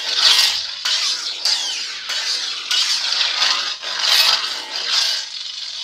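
Proffieboard lightsaber's hilt speaker playing Kyberphonic's 'Darkness' sound font: a crackling, hissing unstable-blade hum that swells about once a second as the blade is swung.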